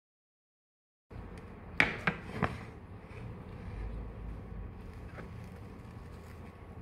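Complete silence for about a second, then steady room noise with a faint hum, broken by three sharp clicks or knocks in quick succession and a fainter click later.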